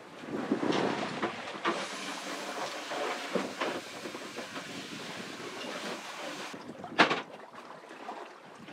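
Sailboat under way at sea: a steady hiss of water and wind, with scattered knocks and clunks from the boat and one sharp knock about seven seconds in.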